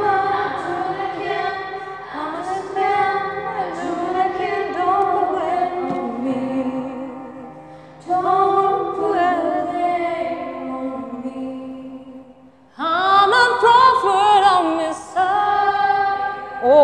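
A teenage girl singing a slow song in long held phrases with short breaths between them. About thirteen seconds in, a louder woman's voice takes over with a higher, wavering phrase.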